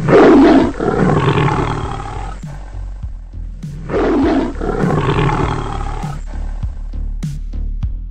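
A lion roaring twice, once at the start and again about four seconds in, each roar loud and trailing off over about two seconds. Background music with a steady beat runs underneath and comes to the fore near the end.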